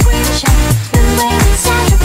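Background electronic hip-hop music: a steady beat with a heavy kick drum about twice a second under held synth notes.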